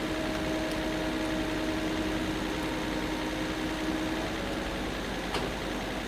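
An engine running steadily with a constant hum, and one sharp click about five seconds in.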